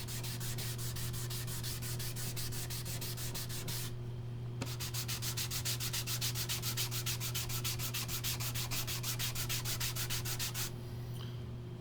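Leather dye being rubbed into bare wood with an applicator: quick, even back-and-forth strokes across the grain surface, pausing briefly about four seconds in, over a steady low hum.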